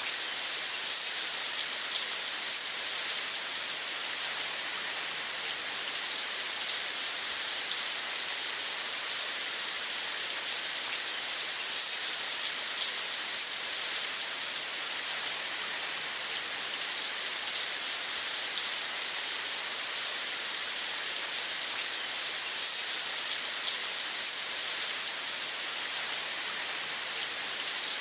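Steady rain falling, an even dense patter with a bright hiss that never lets up.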